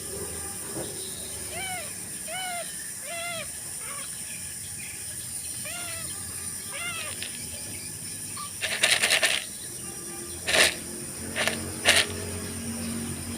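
A cat mewing: about five short, high mews in the first seven seconds. After that come a few loud, sudden noises, the first lasting about half a second.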